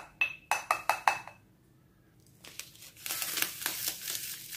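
A plastic measuring spoon tapping against a white ceramic ramekin: a quick run of about six light ringing clinks in the first second and a half. After a short pause, about three seconds in, an instant coffee sachet crinkles as it is handled and torn open.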